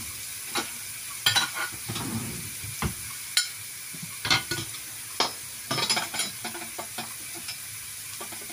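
Diced green pepper frying in oil in a pan: a steady sizzle with scattered sharp crackles and pops.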